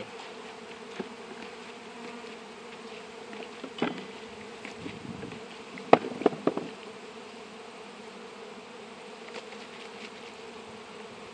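Honeybees buzzing steadily around an open hive, with a few sharp knocks, the loudest about six seconds in.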